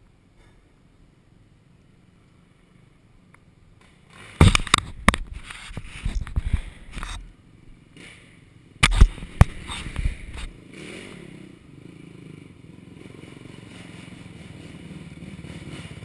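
A run of loud knocks and scrapes close to the microphone for several seconds, then a quad's engine running and growing louder as it rides up near the end.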